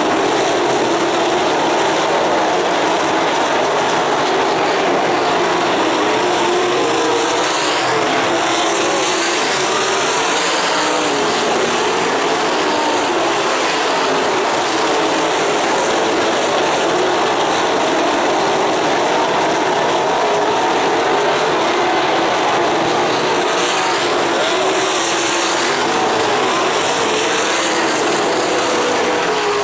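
A pack of winged dirt-track sprint cars racing, their V8 engines running loud and continuous, with the pitch rising and falling as cars pass close by.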